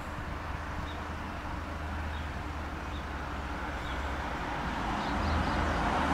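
A road vehicle approaching, its engine and tyre noise growing steadily louder throughout, with a low steady hum beneath. Faint short high chirps sound about once a second above it.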